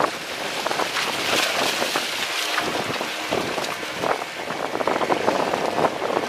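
Steady wind buffeting the microphone, with the sea washing against the concrete breakwater blocks.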